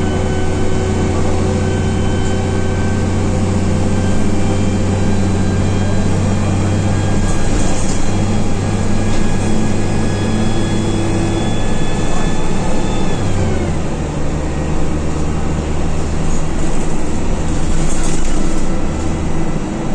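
Diesel engine of an Alexander Dennis Dart single-deck bus running as the bus drives, heard from inside the rear of the passenger saloon: a steady low drone with a whine on top. About two-thirds of the way through, the whine falls in pitch and the drone drops lower as the engine eases off.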